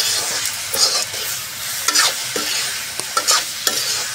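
Metal spatula scraping and stirring diced pumpkin and tomato in a metal kadhai, with repeated irregular scrapes over a steady sizzle of frying oil.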